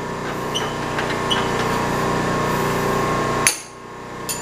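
Steady machine hum, then a sharp metallic knock about three and a half seconds in as a drill chuck is knocked loose from the milling machine's spindle. A lighter click follows near the end.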